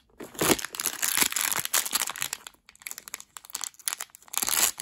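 A small wrapper bag opened by hand and crinkling. The rustle is dense for the first couple of seconds, then turns to scattered crackles, with another burst near the end.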